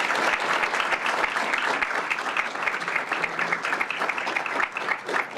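Audience applauding: a dense, steady stretch of many people clapping.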